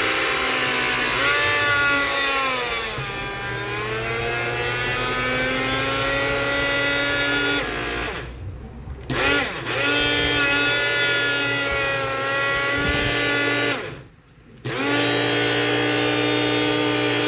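Multilaser portable blender's small electric motor running dry with the cup and drive coupling fitted, in three runs with two short stops about eight and fourteen seconds in; its whine dips in pitch a few seconds in and recovers. This is the test after the coupling was reworked, and the earlier noise is judged fixed.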